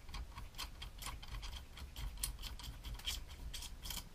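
Quick metal clicks, about three to four a second and unevenly spaced, of a ratchet run down on a nut as it is tightened onto the new copper contact bolt of a Land Rover TD5 starter motor solenoid.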